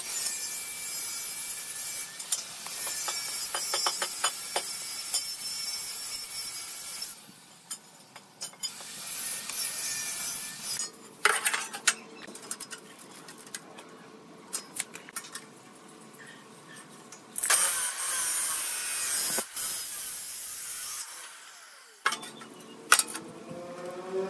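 Hand work on wood: rasping, rubbing strokes of a tool against the wood in spells of several seconds, with quieter pauses between them.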